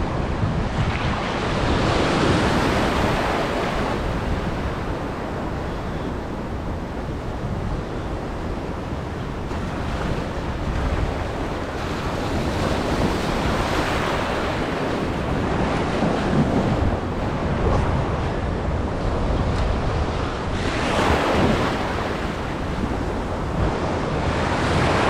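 Surf washing in at the shore, swelling and easing a few times, with wind buffeting the microphone.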